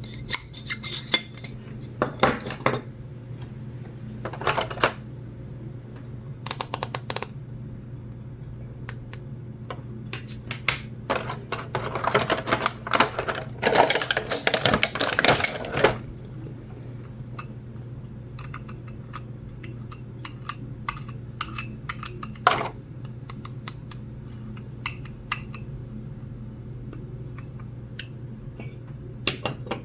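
Small toy pieces being handled: a run of light clicks, taps and clatters, thicker and busier about halfway through, over a steady low hum.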